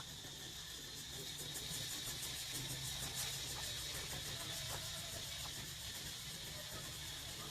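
Low, steady engine hum, slightly louder in the middle, under a continuous high-pitched insect buzz.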